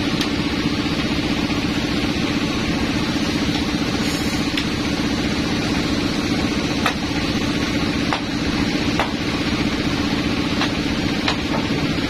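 Sawmill band saw machinery running idle with a steady hum, while a few sharp knocks sound in the second half as the log is shifted on the carriage.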